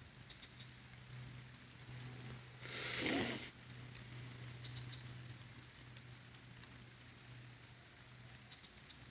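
Light rain pattering, with a few small drip ticks. About three seconds in, a short rushing noise swells and cuts off abruptly.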